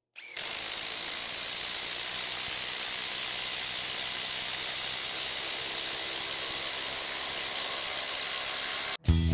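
Bosch IDH182 18 V brushless impact driver hammering continuously as it drives a 5/16 by 6 inch screw into stacked lumber: a steady, even noise lasting about nine seconds that cuts off suddenly near the end as the screw seats.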